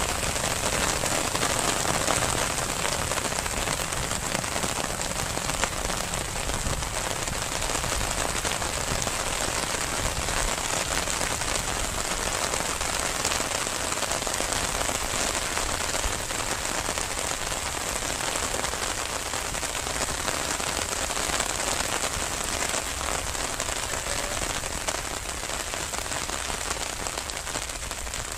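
Steady rain falling, an even hiss of drops with no break.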